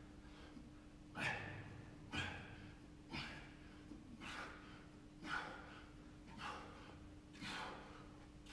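A man breathing hard while doing push-ups, a short forceful exhale about once a second with each repetition. A faint steady hum runs underneath.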